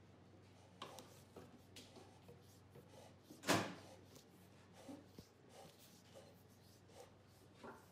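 Faint handling sounds of electrical cable being fed through holes in a plywood torsion-box grid: scattered light knocks and clicks, with one brief, louder scraping rub about three and a half seconds in.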